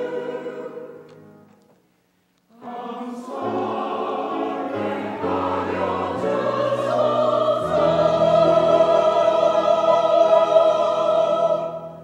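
Mixed church choir singing the closing phrases of an anthem. The singing dies away to a moment of silence about two seconds in, then comes back and swells into a long held final chord that is released just before the end.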